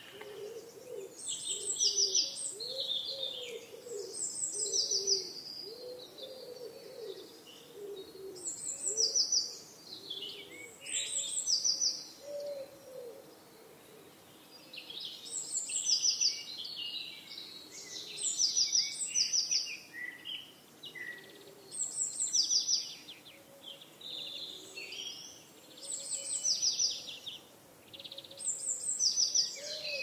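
Birds singing: bursts of quick, high chirps come back every two to three seconds, with other calls between them and a faint lower warbling call running underneath.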